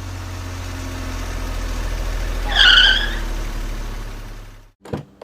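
Vehicle engine running with a steady low hum that fades out about four and a half seconds in. A short, high, falling squeal sounds near the middle.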